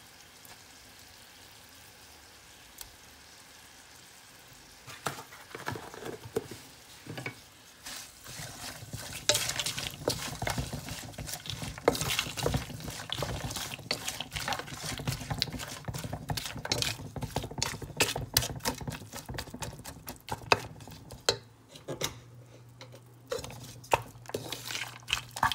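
A spoon scraping and knocking against a cooking pot as ginger-garlic paste is stirred into frying onions, with a sizzle beneath. The stirring starts about five seconds in and quickly grows busier.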